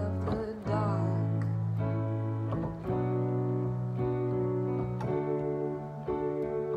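Electronic keyboard playing sustained chords over held bass notes, changing chord every second or two.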